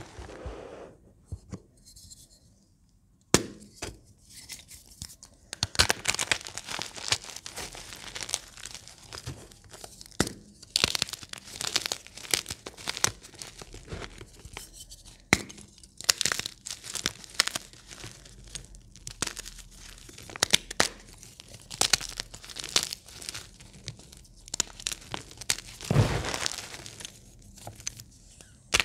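Hands crushing and crumbling chunks of Plain Jane gym chalk: a crunchy crackle full of sharp little snaps, following a near-quiet pause of about three seconds at the start.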